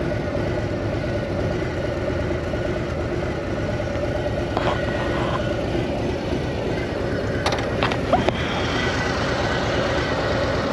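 Harley-Davidson Street Bob 114's Milwaukee-Eight 114 V-twin running steadily at low revs as the motorcycle moves off slowly. A few short sharp clicks come about halfway through and again about three-quarters of the way in.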